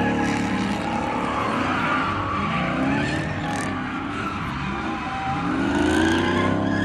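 Engine revving up and down, with tyres squealing as the vehicle slides around on the pavement; the revs climb again near the end.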